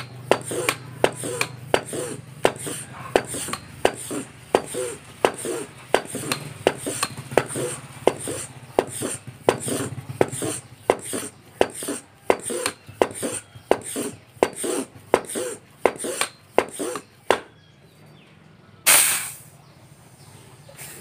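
High-pressure hand pump charging a PCP air rifle's air tube through its newly resealed fill coupler: a quick, steady rhythm of pump strokes, each with a sharp click and hiss of air, stopping about 17 seconds in. About two seconds later comes one short, loud hiss as the air is let out of the hose.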